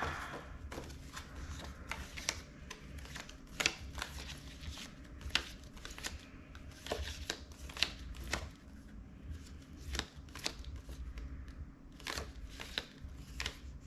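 Paper challenge sheets and cards being handled and flipped through: irregular light taps and rustles, a few sharper clicks among them.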